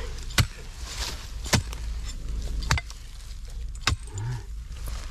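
A narrow-bladed digging spade struck into packed earth four times, about once a second, each blow a sharp thud as the mound is dug open.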